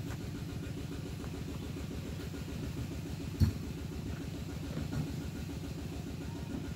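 A motor engine idling steadily with an even low pulse, and a single sharp thump about three and a half seconds in.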